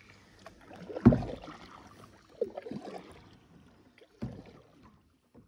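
Kayak paddling on calm water: a few irregular paddle splashes and knocks, the loudest about a second in.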